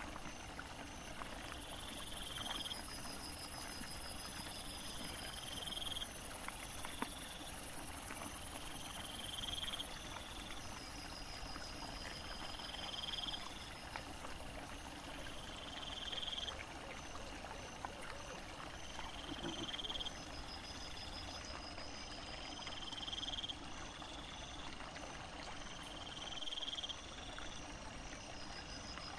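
Night insects calling: a short rising chirp repeats about every three seconds over a steady hiss.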